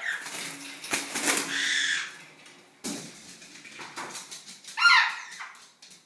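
A parrot flapping its wings for a couple of seconds, then a single loud squawk with a wavering pitch about five seconds in.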